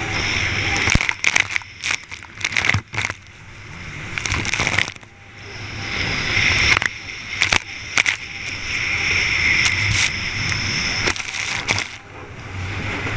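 Jet ski engine running at racing speed, heard from on board, its steady whine fading and coming back several times. The hull slams over choppy water, with repeated sharp knocks and spray and wind hitting the microphone.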